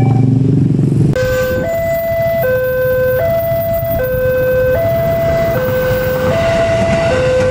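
Electronic two-tone warning alarm of an Indonesian railway level crossing, alternating a low and a high tone about every three quarters of a second, sounding because a train is coming. For the first second a faster alarm from another crossing plays over a loud low rumble, then it switches abruptly to the slower alarm.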